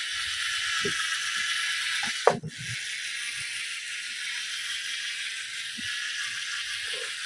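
Electric screwdriver spinning a wool polishing pad, buffing polishing paste onto plated plastic: a steady high whirring hiss. About two seconds in it cuts out briefly with a loud click, then starts again and runs on.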